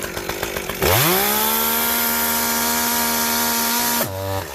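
Two-stroke chainsaw idling, then revved to full throttle about a second in and held at a steady high whine for about three seconds before dropping back to idle near the end, as the running chain is pushed into a pair of chainsaw chaps.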